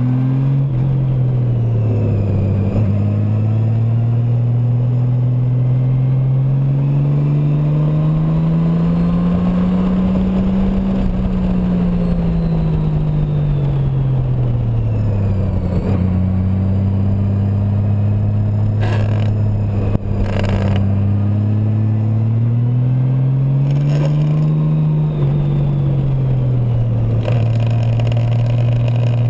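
Honda Gold Wing motorcycle engine heard from the rider's seat, its note rising and falling again and again as the throttle is rolled on and off through the curves. A couple of brief knocks come about two-thirds of the way through.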